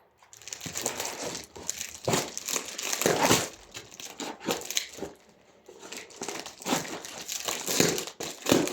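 Packaging crinkling and tearing in irregular bursts as a wrapped item is unwrapped by hand, with a short lull about halfway through.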